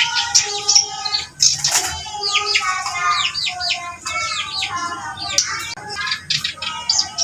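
Kerak basi, an Acrocephalus reed warbler, singing continuously: a fast, varied run of short chirps and down-slurred notes with a few longer held tones, in full vigorous song.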